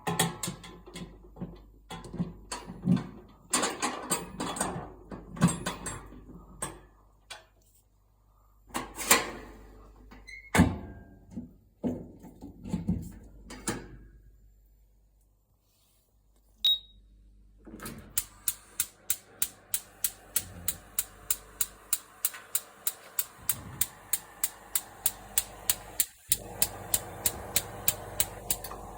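Kitchen handling: knocks and clatter, then a single short high beep and a fast, even series of clicks, about three or four a second, over a steady low hum, typical of a home oven being set and running.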